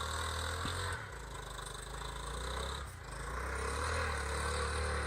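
Honda Trail 110's small single-cylinder four-stroke engine running at a distance with a steady low hum, easing off twice and then swelling again.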